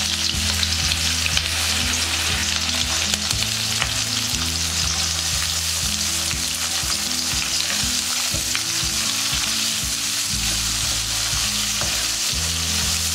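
Chopped red onions sizzling as they fry in hot oil with bay leaves in a wok, a steady sizzle throughout. A flat spatula stirs them and scrapes against the pan.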